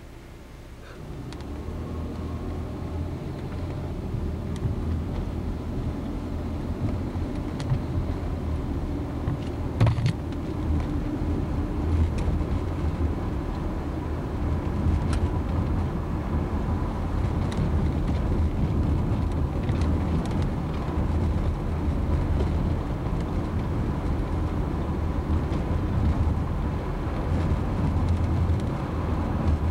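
Car driving, heard from inside the cabin: a steady low engine and road rumble that grows louder about a second in, with a few sharp ticks now and then, the loudest about ten seconds in.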